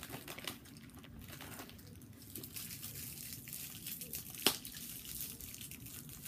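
Small candy wrappers crinkling and crackling as pieces of sour bubble gum are unwrapped by hand, with one sharp click about four and a half seconds in.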